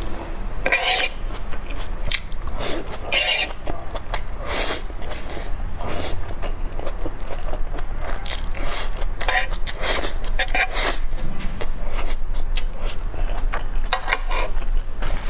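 Close-miked eating of spicy noodles: a string of wet slurps, chewing and mouth smacks, a few louder slurps standing out.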